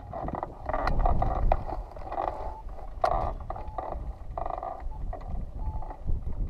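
Wind buffeting the microphone of a camera on a hang glider's base bar, a steady low rumble, with irregular short fluttering sounds and a few sharp clicks.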